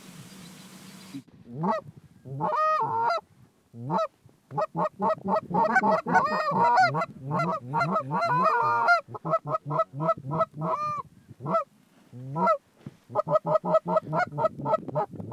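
Canada geese honking and clucking: many short calls in quick succession, starting about a second in and thickening into a near-continuous chorus, with a brief lull toward the end.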